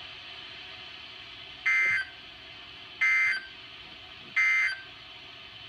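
Emergency Alert System end-of-message signal: three short SAME digital data bursts a little over a second apart, each a two-tone warble over a faint steady background hum.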